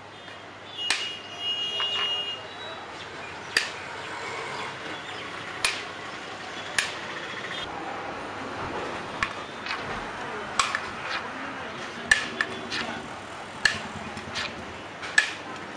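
Steel serving ladle clinking and scraping against a large aluminium biryani pot as rice is scooped out: about a dozen sharp metallic clinks, irregularly a second or two apart. Over a bed of street noise, a brief vehicle horn sounds about a second in.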